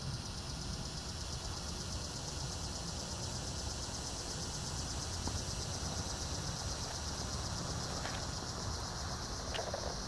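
Steady, high-pitched buzzing of cicadas over a low background rumble, with a couple of brief clicks near the end.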